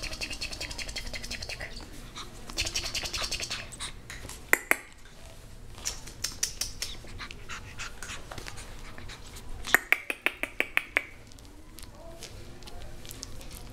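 Japanese Chin puppy nibbling and licking at a hand: bursts of quick, wet clicking and smacking, with a run of sharper clicks about ten seconds in.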